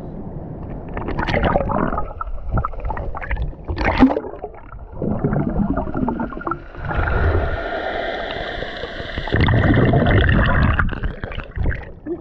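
Sea water splashing and sloshing around a handheld camera at the surface, then the muffled gurgle and rumble of water while the camera is under the surface in the second half.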